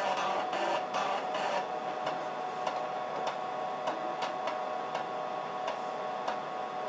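Floppy disk drive reading a Win98 boot disk as the machine boots: irregular clicks of the head stepping, busiest in the first second and a half, then sparser. Under them runs a steady whir with a constant tone.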